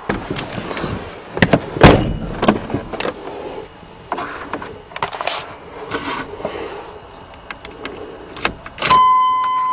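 Irregular clicks, knocks and rattles of a pickup's door and keys being handled, with no engine running. A steady high-pitched beep starts near the end.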